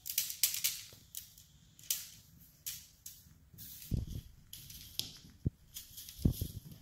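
Repeated crinkling swishes of a tinsel-streamer wand toy being waved and swept over the floor, with a few thumps as a kitten pounces and lands, about four seconds in and twice more near the end.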